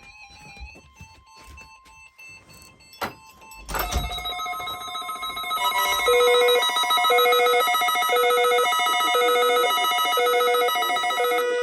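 NOAA Weather Radio warning alarm tone sounding for the required weekly test. After a few seconds of faint static and weak tones, it comes on suddenly and holds steady. From about six seconds in, a lower beep repeats about once a second.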